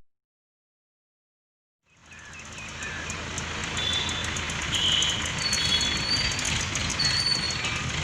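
Digital silence for about two seconds, then a New Holland 7500 tractor-mounted borewell rig running steadily, fading in and growing louder, with a few short high chirps over it.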